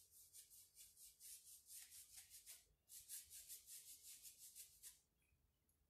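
Paintbrush bristles rubbing paint onto a wooden cable-spool tabletop in quick, short, faint strokes, about four a second, with a brief pause near the middle. The strokes stop about a second before the end.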